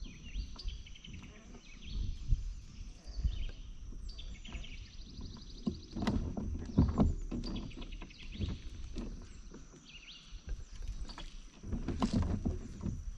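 Small birds chirping and trilling over a thin, steady high tone, with knocks and handling noise from the fishing kayak and its tackle, loudest about six to seven seconds in and again near the end.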